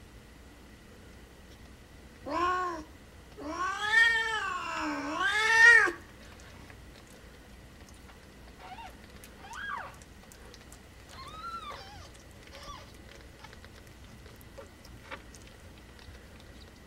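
Orange tabby queen in labour crying out: a short loud meow, then a long, wavering yowl of about two and a half seconds. Several faint, high-pitched mews from the newborn kittens follow.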